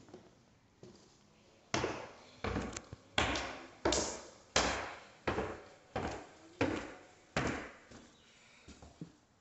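Footsteps on a bare floor in an empty, unfinished room: about ten heavy steps at a walking pace, each with a short echo. They start about two seconds in and thin out near the end.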